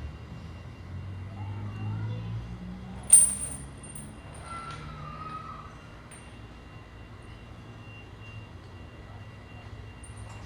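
Small caged songbird giving a few very high, thin chirps, the loudest a sharp one about three seconds in followed by a short run of quick notes, over a steady low hum.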